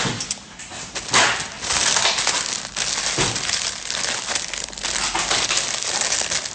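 Gift packaging being handled and unwrapped: a dense crinkling rustle with sharp crackles that grows thicker about a second in.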